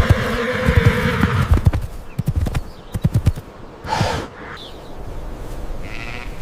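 A horse neighing in one long call that ends about a second and a half in, over clip-clopping hoofbeats that stop after about three seconds. A short burst of noise follows near four seconds.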